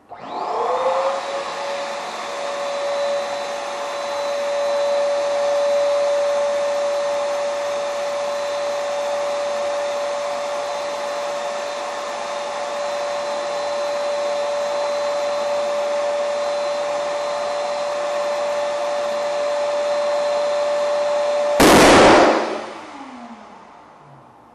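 An electric balloon pump runs with a steady whine, inflating a latex balloon until the balloon bursts with a single loud pop about 22 seconds in. Right after the pop, the pump's whine falls in pitch and fades as the motor winds down.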